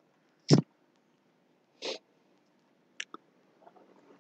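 Short breath and mouth noises close to the microphone, with near silence between: a loud, sharp sniff-like puff about half a second in, a softer breath near two seconds, and two small mouth clicks around three seconds.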